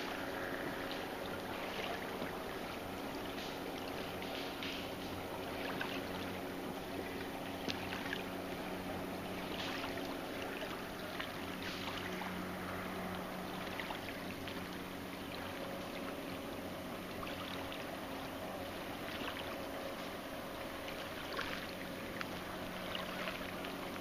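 Small ripples lapping against a rocky lake shore, with irregular soft splashes, over a faint steady low hum.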